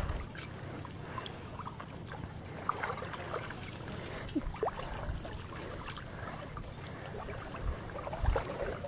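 Shallow flood water sloshing and dribbling as a person wades knee-deep and handles a wet fishing line, with small scattered splashes and a couple of low thumps near the end.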